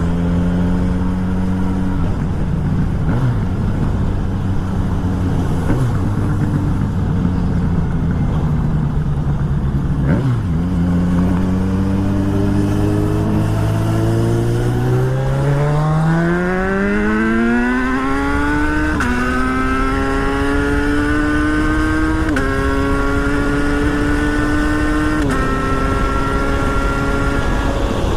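Kawasaki Versys 1000 inline-four engine accelerating through the gears, its revs climbing and then dropping sharply at each clutchless quickshifter upshift. There are several shifts in a row, about three seconds apart in the second half.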